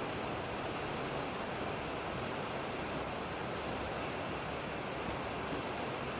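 Steady rain: an even, unbroken hiss with no thunderclap in it.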